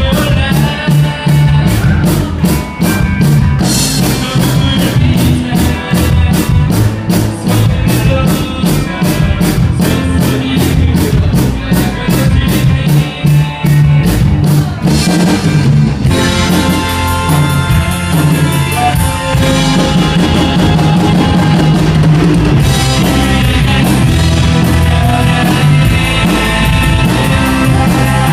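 Live rock band playing, led by a drum kit with a steady run of cymbal strokes through the first half. About halfway in the band thins for a moment, then comes back in a denser, steadier section.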